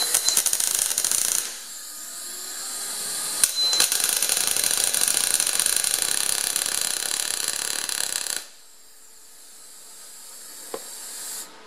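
MIG welder arc crackling as it tack-welds a steel steering shaft, in two runs: a short one of about a second and a half, then a longer one of about four and a half seconds, with a quieter hiss between and after. The tack goes on the shaft's high spot so that the weld's pull straightens a slight bend.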